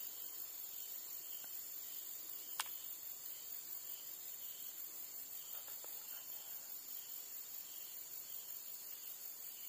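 Steady high-pitched chorus of insects, with one sharp click about two and a half seconds in.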